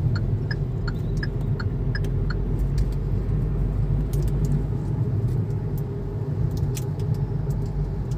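Inside the cabin of a Hyundai Grand i10 Nios running in fourth gear: a steady low rumble of engine and road noise. The turn signal ticks about three times a second for the first two seconds or so, then stops.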